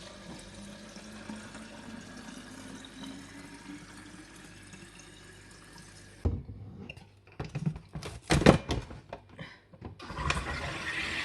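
Water running steadily for about six seconds, then cutting off, followed by a few scattered knocks, the loudest about eight and a half seconds in.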